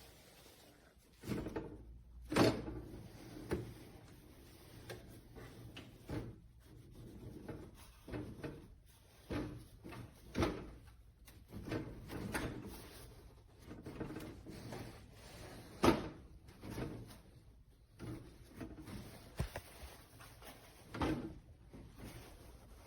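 Drawers or storage bins of a workbench being slid in and out and handled, with a string of irregular clunks and knocks. The sharpest come about two seconds in, about two-thirds of the way through and near the end.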